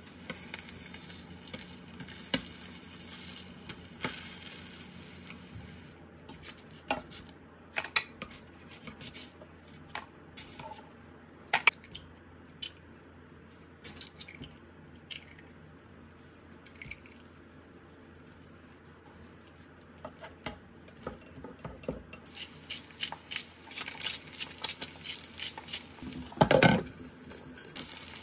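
Food frying in an oiled ceramic-coated frying pan, a soft sizzle at the start and again near the end. A plastic spatula clicks, taps and scrapes against the pan throughout as sausage slices and then fried eggs are turned and lifted, with the loudest scrape near the end.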